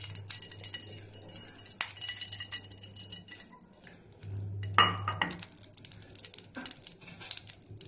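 A metal saucepan being moved and set down on a stone kitchen counter: light clinks and scrapes, with one louder clunk about five seconds in. A faint low hum runs underneath.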